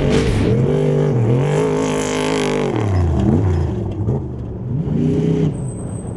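Off-road race vehicle's engine revving hard, its pitch climbing and falling several times, dropping sharply about three seconds in and climbing again near five seconds.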